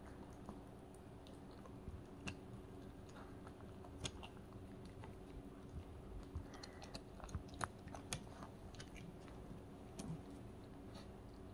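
A Maltipoo puppy eating a slice of dog cake: faint, scattered mouth clicks and smacks of nibbling and chewing, over a steady low hum.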